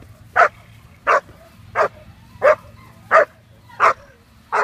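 German Shepherd puppy barking at a bitework helper: a steady run of seven evenly spaced barks, about three every two seconds.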